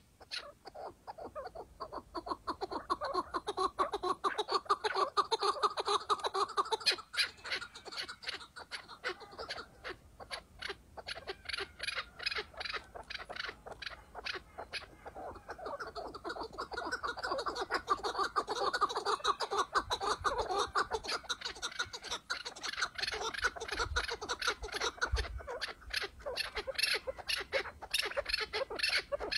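Chukar partridge calls: long runs of rapid, repeated clucking notes that swell twice.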